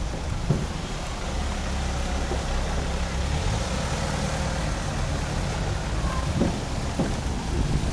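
A car driving slowly past close by, its engine running with a steady low rumble.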